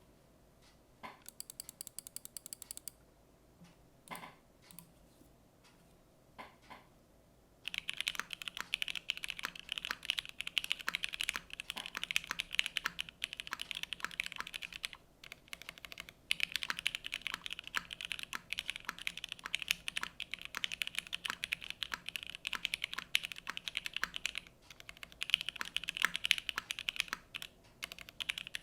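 Keycult No. 1 TKL Rev. 2 mechanical keyboard with Opblack switches, GMK keycaps and a half-plate FR4 in a gasket mount being typed on: a few single keystrokes at first, then continuous fast typing from about eight seconds in, with a brief pause about halfway.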